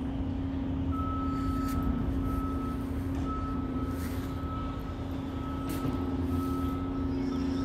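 Steady low mechanical hum on one pitch over a low rumble, with a faint higher tone that comes and goes from about a second in.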